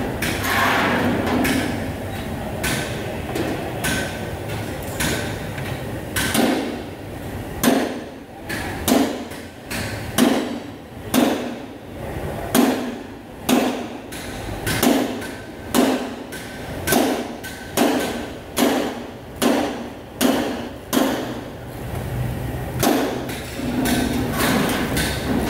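Hammering in a vehicle workshop: a steady run of sharp blows, about one a second, for some sixteen seconds, with general clatter before and after.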